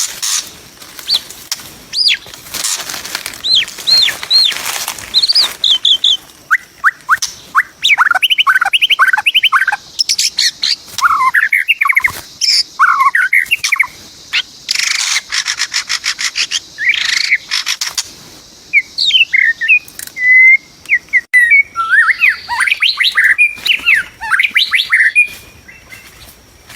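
White-rumped shama giving quick, varied whistled notes and song phrases, mixed with several short bursts of rustling noise.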